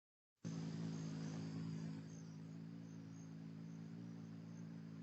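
Faint high insect chirping over a steady low hum, after a split-second dropout to silence at the very start.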